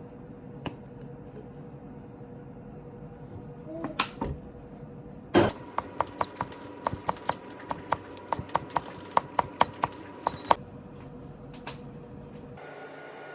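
Kitchen utensils: a loud clatter about five seconds in, then a quick run of sharp taps, about three or four a second, for some five seconds.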